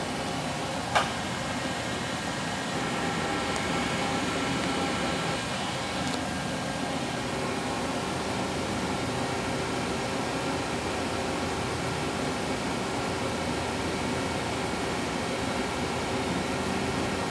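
Steady machine-shop hum of running machinery, with several steady whining tones over a noisy rush. There is one sharp click about a second in, and the hum grows a little louder about three seconds in.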